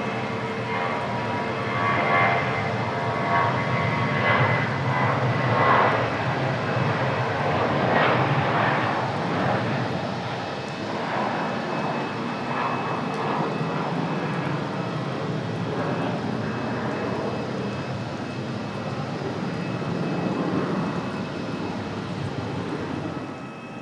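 Airliner engines running, a steady roar with high whining tones that is loudest in the first few seconds and slowly fades, then drops off sharply just before the end.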